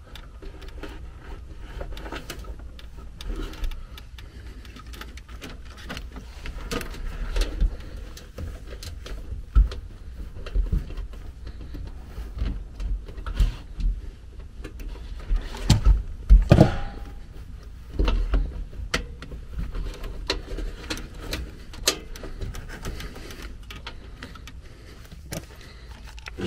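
Handling noise in a furnace's sheet-metal blower compartment: scattered knocks, rattles and clicks of hands and wiring against the cabinet panels and blower housing, with a louder metallic clunk a little past the middle.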